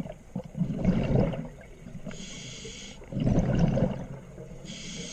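Scuba diver breathing through a regulator underwater: loud rumbling bursts of exhaled bubbles about a second in and again just after three seconds, with the hiss of an inhalation through the demand valve between them and another starting near the end.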